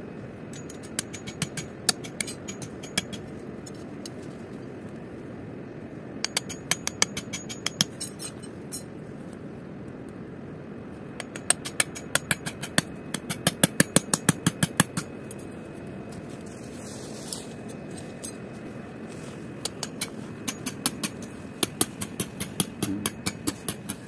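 Four bursts of rapid, sharp tool strikes, several a second, as material is worked for the shelter, over a steady hiss of rain.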